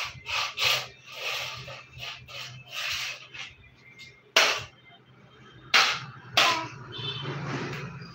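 A crawling baby's hands and knees scuffing and slapping on a stone floor and a quilt: a run of short rubbing sounds, then three sharp slaps a second or so apart in the middle, and more rustling near the end.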